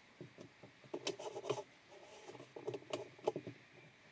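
The white plastic centre piece of a spin-dryer drum being worked by hand down onto its shaft: irregular light scraping, rubbing and small plastic clicks.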